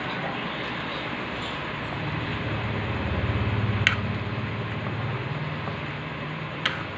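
Pot of misua noodle soup simmering in a wok with a steady hiss, a low hum swelling and fading in the middle. A utensil clicks against the wok twice, about four seconds in and near the end.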